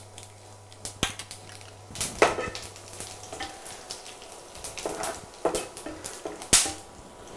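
Cumin seeds and whole spices sizzling in hot ghee in a nonstick pan, stirred and scraped with a wooden spatula. A few sharp clicks stand out, one about a second in and a louder one near the end.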